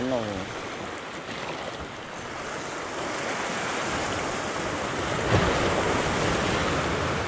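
Sea waves washing against the rocky shore, with wind on the microphone; the surf grows louder from about three seconds in, with a bigger wave about five seconds in.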